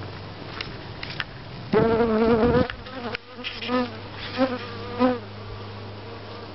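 Honeybees buzzing as they fly close past the hive: one loud buzz of about a second, then several shorter passing buzzes, over a steady low hum.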